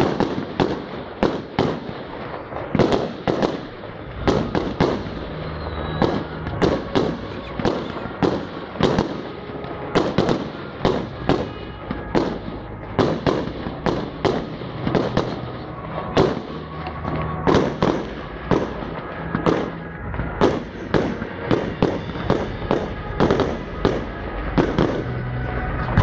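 Fireworks display: aerial shells launching and bursting in quick succession, dozens of sharp bangs at about one or two a second, some overlapping.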